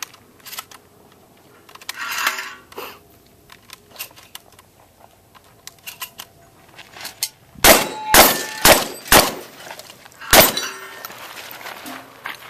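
Light clicks of shotgun handling and loading, then five quick shotgun blasts at steel targets, about half a second apart with a pause before the last, each with a ringing clang as the steel is hit.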